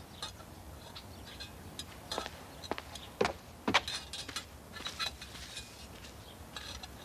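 Scattered light clicks and knocks, the sharpest of them a few seconds in.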